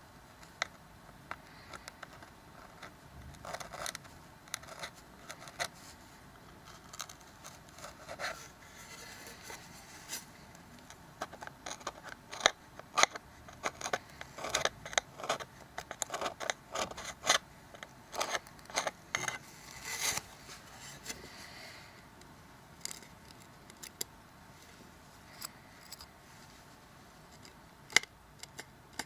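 A small hand tool scraping and clicking against a smartphone's frame, with irregular short scrapes and sharp ticks that come thickest in the middle: old double-sided adhesive being cleaned off.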